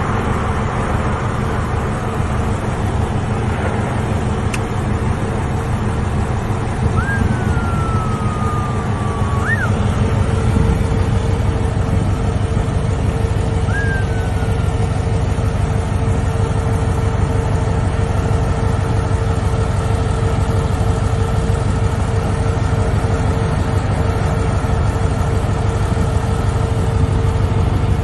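Deep, steady rumble of a gold-mine slope collapsing, tons of earth and rock sliding downhill, over the constant hum of a heavy earthmoving machine's engine running close by. The rumble swells about ten seconds in. A few short whistle-like tones sound between about 7 and 10 seconds and again near 14 seconds.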